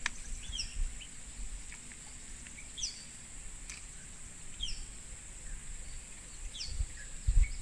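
Tropical forest ambience: insects drone on a steady high note while a bird gives short, falling chirps about every two seconds, over a faint low rumble.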